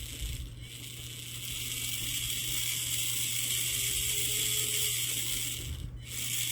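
Axial SCX24 crawler's Barrage motor and small gear transmission spinning the wheels on a test run, a steady mechanical whir. It builds over the first couple of seconds, stops abruptly about six seconds in, then starts again.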